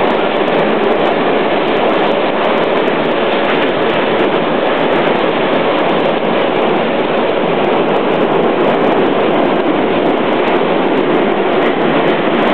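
Moscow Metro retro train running between stations: a steady rolling rumble of wheels and motors, heard from on board, with no change in speed.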